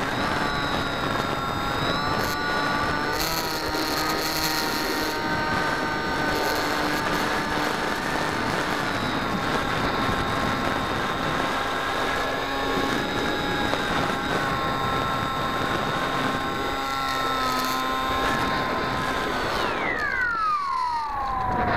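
Brushless electric motor and propeller of a Bixler 2 RC plane heard from on board: a steady whine over a hiss, its pitch shifting slightly with throttle. Near the end the whine falls sharply in pitch as the motor is throttled back before landing.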